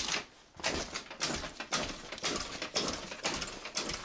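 Scooter engine being kick-started over and over, about two kicks a second, each kick turning the engine over briefly without it catching.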